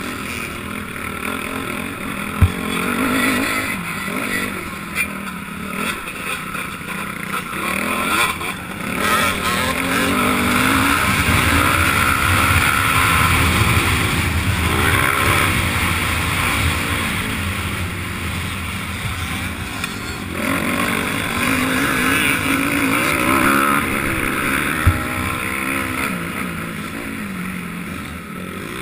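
Honda 250 motocross bike's engine revving up and dropping back over and over as it is ridden hard around a dirt track, with a sharp knock about two seconds in and another near the end.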